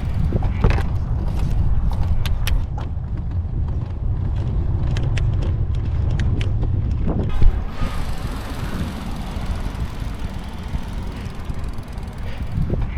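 Steady low rumble of a vehicle moving along the road, with scattered light clicks and rattles and one sharp knock about seven and a half seconds in.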